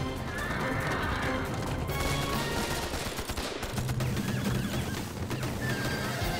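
Dense battle gunfire: volleys of rifle and machine-gun shots going off in quick succession throughout.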